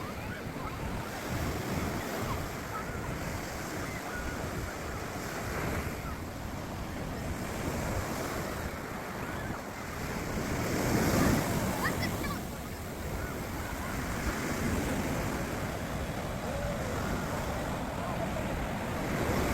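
Sea surf breaking and washing on a beach, in swells that rise and fall, with one louder crash about eleven seconds in. Wind buffets the microphone.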